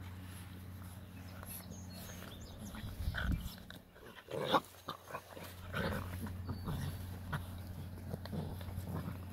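Six-week-old Tosa Inu puppies play-fighting and making short, irregular vocal sounds, loudest about three and four and a half seconds in, over a steady low hum.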